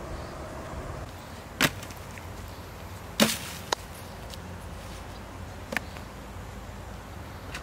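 Four sharp knocks or strikes at uneven intervals, the second one the loudest, over a steady low background hum.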